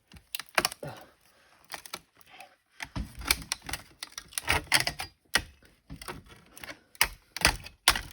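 Irregular clicks, taps and knocks of hands and a tool working on a laptop's plastic and metal casing during disassembly, with a short lull about a second in and then a quicker run of knocks.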